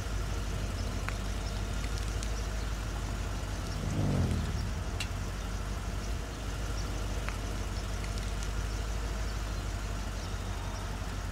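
Car engine idling with a steady low hum, heard from inside the cabin. About four seconds in there is a brief low sound that falls in pitch.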